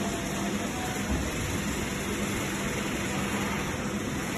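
Electric hospital bed's actuator motors running steadily with a low hum as the whole bed is raised.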